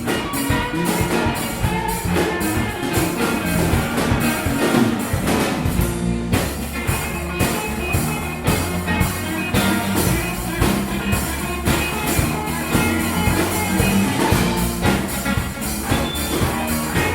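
A small live band playing instrumental music, with a drum kit keeping a steady beat over a bass line.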